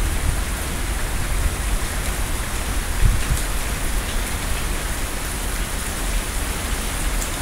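Heavy rain falling steadily, with a low rumble of thunder underneath.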